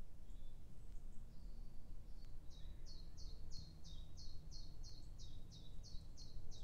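A small songbird singing a run of about a dozen quick, evenly repeated high notes, each slurring slightly downward, at roughly three a second; the run starts a couple of seconds in. A steady low outdoor rumble lies underneath.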